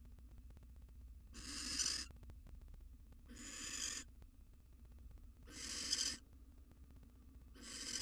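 Barn owl giving four harsh, hissing screech calls about two seconds apart. Each lasts about half a second, swells and then cuts off. This is the wheezy begging call typical of a female barn owl asking her mate for food.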